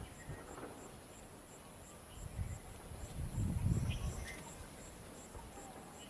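Insects chirping steadily in a high, even rhythm of about three chirps a second. A louder low rumbling noise comes twice, between about two and four seconds in.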